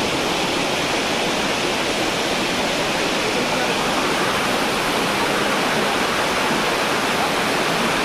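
Steady rush of a waterfall, an even hiss of falling water with no breaks.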